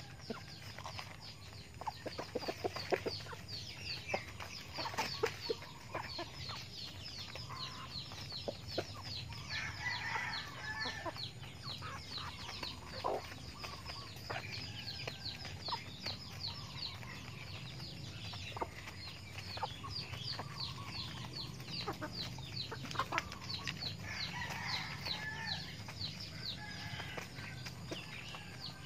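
Small backyard flock of chickens clucking as they feed, with a few short calls. A fast, high, steady chirping runs behind them, a few chirps a second.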